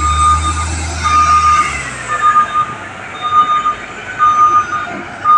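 Heavy-vehicle reversing alarm beeping steadily, about one beep a second, over a diesel engine rumble that dies away a little under two seconds in.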